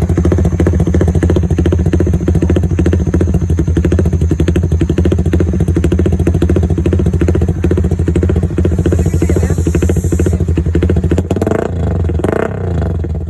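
Suzuki Raider R150 Fi motorcycle's single-cylinder four-stroke engine idling steadily through an aftermarket JEC Speed exhaust pipe, with a short change in the sound near the end.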